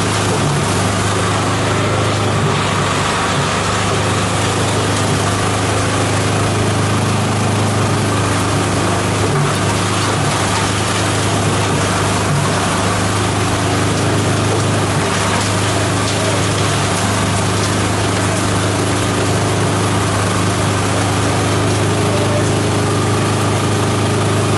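Multi-purpose chopper-shredder machine running steadily while shredding plant material: a continuous mechanical drone over a strong, steady low hum.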